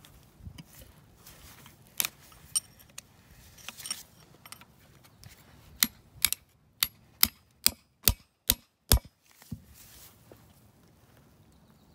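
A screwdriver or pick working at the old front axle knuckle seal of a Kubota L3830 to collapse it and peel it out of its bore: scattered sharp metal clicks, then a quick run of about nine sharp taps, two or three a second, around the middle.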